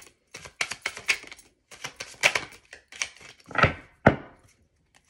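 Tarot cards being handled and set down on a table: an irregular run of light clicks and taps, with two duller knocks about three and a half and four seconds in.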